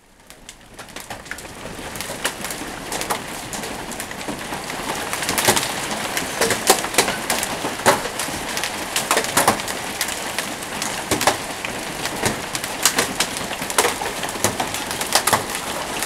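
Hail falling and striking the ground and hard surfaces around a yard: a steady rushing hiss dotted with many irregular sharp clicks and knocks, swelling up over the first couple of seconds.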